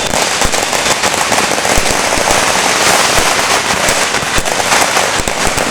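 Dense, continuous crackle of New Year firecrackers and fireworks: a rapid barrage of many small pops with a few louder bangs scattered through it.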